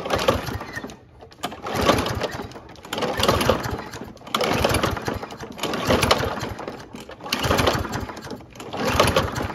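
Kohler single-cylinder engine on a Toro Recycler walk-behind mower being cranked by its recoil starter rope, pulled about seven times, one pull every second and a half or so. Each pull spins the engine in a short rattling burst without it starting, though it sounds like it wants to. The fuel is old, and the owner expects the carburetor needs cleaning.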